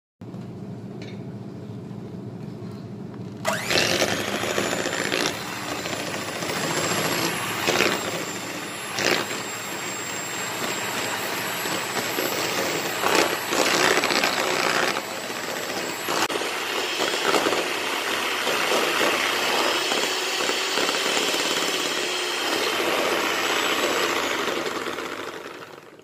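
Electric hand mixer running, its wire beaters whipping margarine in a plastic bowl as it is creamed until pale. It hums lower for the first few seconds, then gets much louder about three and a half seconds in, with a few short knocks, and dies away near the end.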